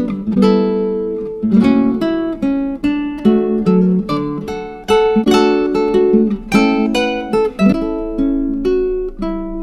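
Solo plucked string instrument, guitar-like, playing a melody of single notes and chords at a steady pace. Each note strikes sharply and rings out as it fades.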